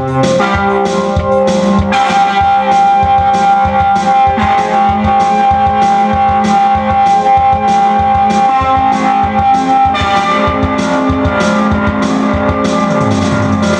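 Instrumental music played on keyboard, with a steady beat and long held notes; the chord changes about ten seconds in.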